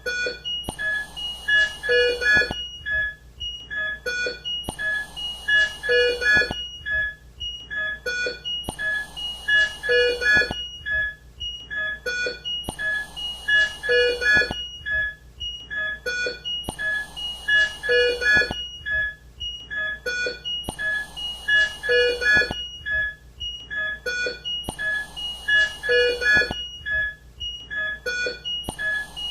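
Intensive-care equipment: a patient monitor's electronic alarm beeps sound in several pitches, together with a short hiss of air from a mechanical ventilator. The pattern of beeps and hiss repeats about every four seconds.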